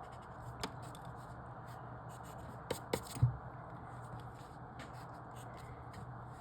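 Pen or pencil marking a paper logic-puzzle grid: faint scratching strokes with a few light ticks near the middle, over a low steady hum.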